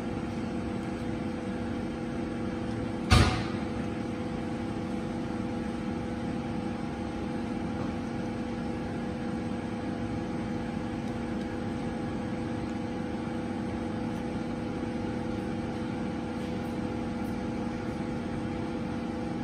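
Kunzmann BA 600 CNC machining centre running with a steady hum made of several held tones. A single sharp click sounds about three seconds in.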